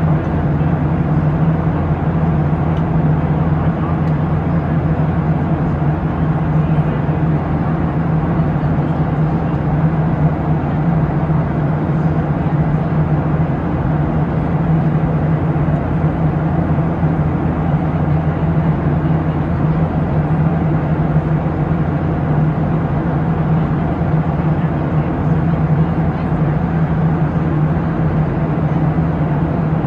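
Steady cabin noise of a Boeing 737-700 in cruise: a constant rush of air with a low, even engine drone underneath.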